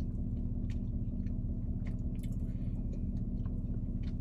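Faint chewing with small, irregular mouth clicks of someone eating, over a steady low hum inside a car.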